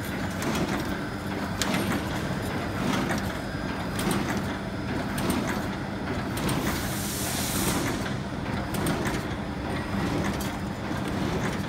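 Automatic cartoning machine running, a steady mechanical clatter that pulses about once every second with sharp clicks. A burst of hissing air comes about two-thirds of the way through.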